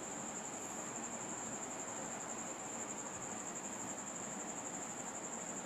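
A steady high-pitched whine with a faint flutter over low background hiss.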